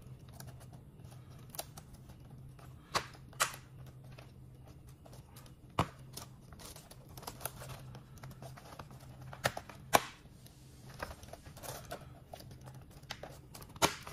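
Laptop keyboard of a Toshiba Satellite L700-series notebook being pressed down into its frame by hand, giving scattered clicks and plastic snaps of keys and the keyboard seating, about half a dozen sharper than the rest.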